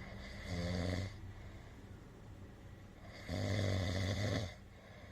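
Snoring: two loud snores with a low buzz, the first about half a second in and the second, a little longer, about three seconds later.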